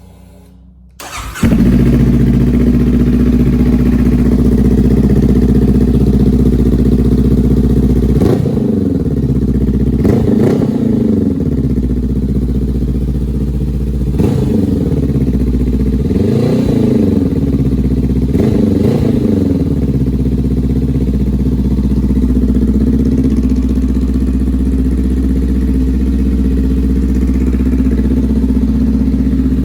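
Honda CBR500R parallel-twin engine started up through its exhaust, catching about a second in and settling to a steady idle. It is revved in five short blips in the middle, then idles on.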